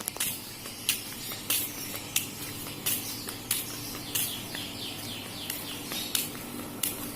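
Footsteps at a steady walking pace, one crisp step about every two-thirds of a second, over a faint steady low hum.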